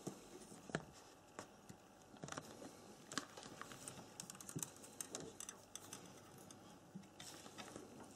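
Faint, irregular small clicks and taps of soldering work at a circuit board while a solder pad is pre-tinned, with a few sharper ticks about a second in, around three seconds in and around five seconds in.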